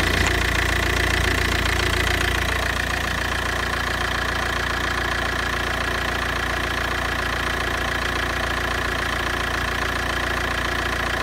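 Fiat Multipla's 1.9 JTD (182B4000) four-cylinder common-rail turbodiesel idling steadily, slightly louder in the first couple of seconds.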